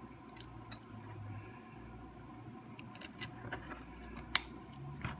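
Faint scattered clicks and taps from a small die-cast toy car being handled, with one sharper click about four seconds in, over a low steady hum.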